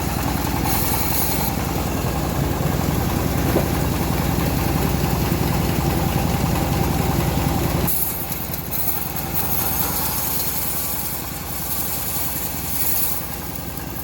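Engine-driven homemade bandsaw mill running steadily. About eight seconds in, its deep low sound drops and a higher hiss takes over.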